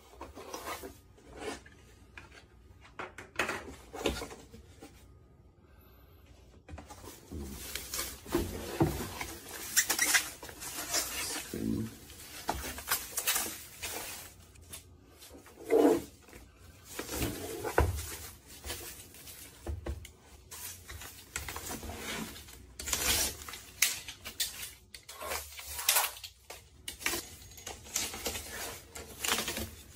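Hands handling hardware: irregular small clicks, taps and rubbing of hard parts, with a few louder knocks, the loudest about sixteen seconds in.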